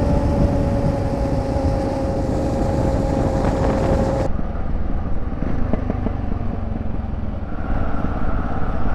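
Adventure motorcycles riding at steady road speed: engine running under a heavy rush of wind on a bike-mounted camera. A steady whine sits over it for the first few seconds, and the sound changes abruptly twice as the footage cuts between bikes.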